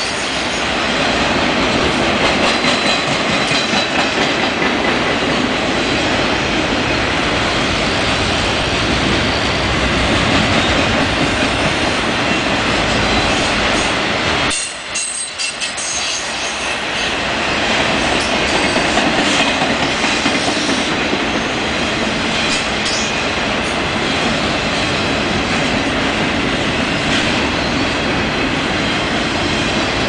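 Freight train cars rolling past close by: a steady rumble and clatter of steel wheels on rail, with faint high wheel squeals. The noise dips briefly about halfway through, then carries on.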